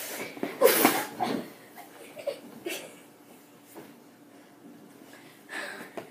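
Two boys play-wrestling: a loud yell and scuffle about a second in, then quieter rustling and breathing, with another short burst near the end.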